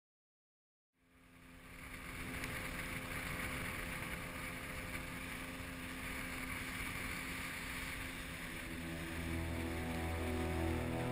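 Motorboat running steadily on the river, fading in about a second in, with wind on the microphone. Music comes in near the end.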